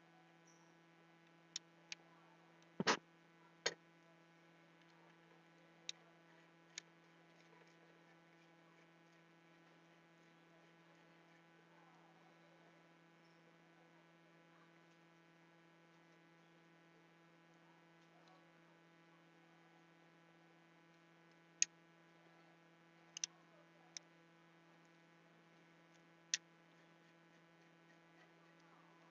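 Steady low mains hum, broken by about ten short sharp clicks and taps of a screwdriver and small metal parts being handled while a graphics card and its heatsink bracket are refitted; the loudest click comes about three seconds in, and a few more come together past twenty seconds.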